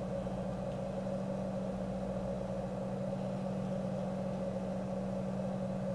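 Electric potter's wheel motor running at a steady speed: a constant low hum with a fainter higher tone.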